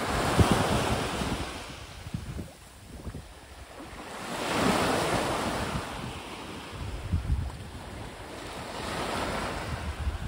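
Small waves breaking and washing up a pebble beach, the surf swelling three times about every four to five seconds, with wind rumbling on the microphone.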